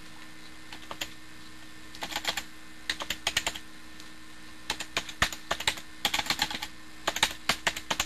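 Typing on a computer keyboard: irregular bursts of quick keystrokes with short pauses between them, over a steady low hum.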